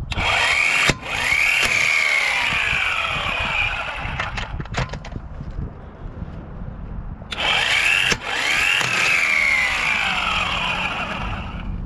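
Corded 12-volt Mplus electric impact wrench run twice, a few seconds each time, loosening a car's lug nuts. Each run rises in pitch and then falls away.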